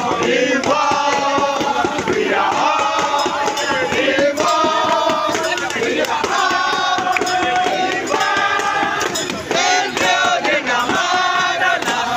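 A crowd of protesters chanting in unison, in long sung phrases of a second or two with short breaks between them.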